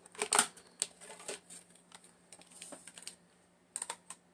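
Irregular plastic clicks and taps from a Dymo label maker being handled as AA batteries are fitted into it, a few sharper snaps about half a second in and near the end.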